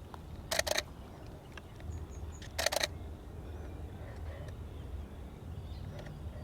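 Camera shutter firing in two short bursts of rapid clicks, about three frames half a second in and three or four more near the middle.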